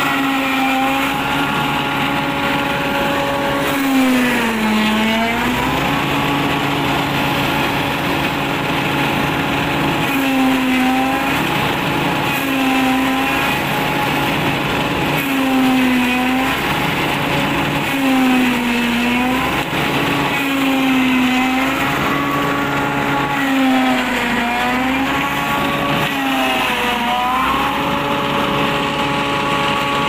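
Celmak stationary silage chopper driven off a Massey Ferguson 385 tractor's PTO, running at a steady pitch. About eight times its pitch sags briefly and then recovers as armloads of corn stalks are fed in and chopped, the machine and engine bogging under the load.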